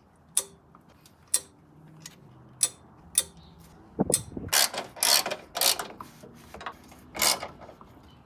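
Hand socket ratchet clicking and metal clinks as bolts are run in to fasten a transmission mounting bracket: sharp single clicks about once a second, then a thud about four seconds in followed by a busier clatter of clicks.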